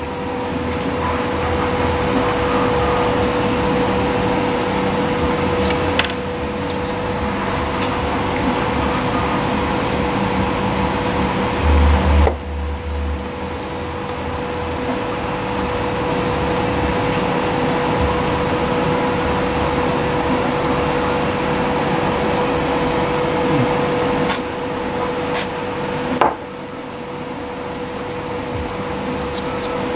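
Steady machine hum with a constant tone over a noisy whir, with a few sharp clicks of small plastic parts being handled and a short low thump about twelve seconds in.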